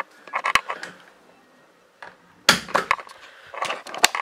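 Clicks, knocks and rustling of a bedroom door being handled and pulled to, with the camera being handled, the loudest knocks from about two and a half seconds in and a sharp click near the end.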